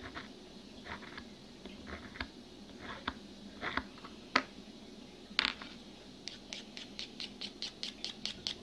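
Small blade scraping and cutting the excess grip tape along the edge of a wooden fingerboard deck in short, irregular strokes, then quick rubbing strokes at about five a second as the leftover grip is worked off the edge.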